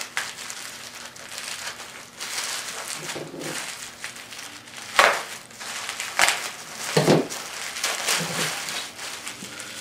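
Package contents being rummaged through by hand: packaging rustling and crinkling, with a few sharp knocks about halfway through as items bump together.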